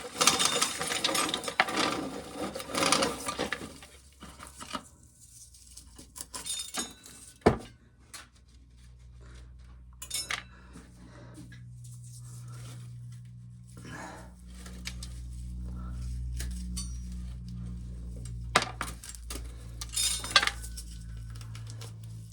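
Corn sheller at work, with a dense clatter of dry kernels and ears for the first few seconds, then scattered clicks and rattles. A low steady hum builds from about eight seconds in.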